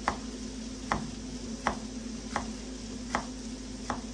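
Kitchen knife slicing a zucchini into rounds on a wooden cutting board: six crisp knocks of the blade meeting the board, about one every three-quarters of a second, over a steady low hum.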